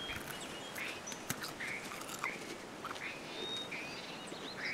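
Birds chirping and calling with many short, quick notes, over a soft outdoor background, with a sharp click about a second in.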